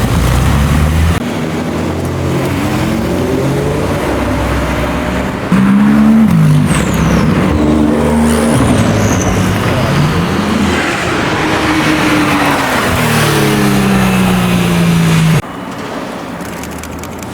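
Supercar engines revving and accelerating, the pitch climbing and dropping again and again as they rev and shift. The loudness changes abruptly about a second in, around five and a half seconds in, and near the end.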